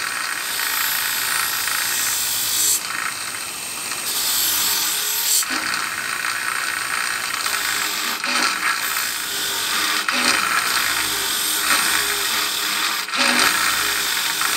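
Wire wheel on a bench grinder brushing rust and scale off an old knife blade held against it: a steady scratching noise that changes in tone several times as the blade is moved across the wheel.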